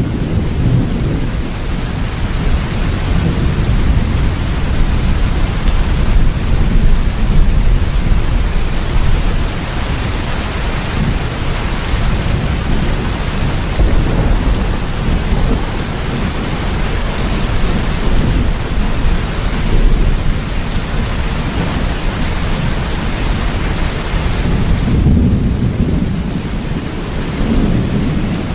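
Steady rain with a continuous deep rumble of thunder underneath. Near the end the hiss of the rain thins briefly while the rumble swells.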